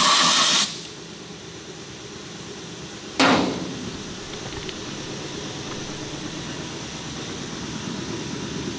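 A short blast of compressed air from a blow gun, just over half a second long, blowing debris out of a car's brake caliper. About three seconds later comes a sudden knock, followed by a steady low background noise.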